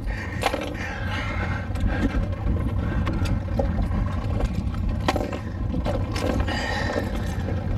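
A steady low rumble on a boat at sea, with a few sharp clicks and knocks as a tool works at the mouth of a landed giant trevally on the deck, most likely unhooking the popping lure.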